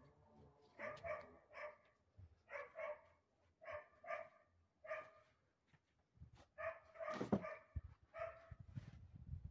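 A dog barking repeatedly, short barks often coming two at a time, fairly faint.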